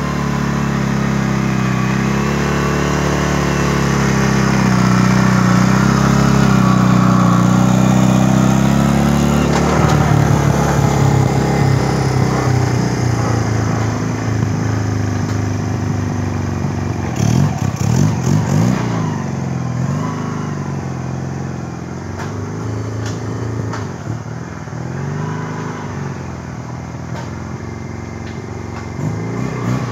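The homemade ATV's 250cc engine running under changing throttle, its pitch rising and falling as it drives on a dirt track. Just past halfway there is a short burst of clattering knocks, and towards the end the engine grows quieter as it pulls away.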